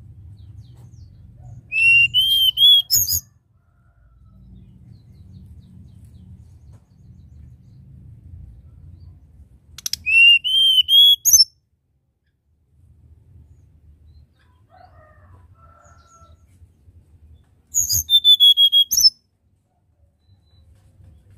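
Hill blue flycatcher singing three short whistled phrases about eight seconds apart. Each phrase is a quick run of arched, rising-and-falling notes ending in a sharp note, with a low rumble underneath between the phrases.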